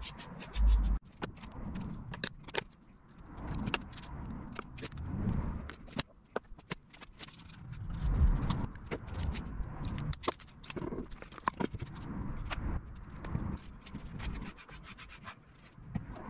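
Handling noises on an MDF router-table sled: many short clicks, scrapes and rubs, with a couple of low thumps near the start and about eight seconds in, as double-sided tape is pulled, cut and pressed on and wooden pieces are set down and shifted.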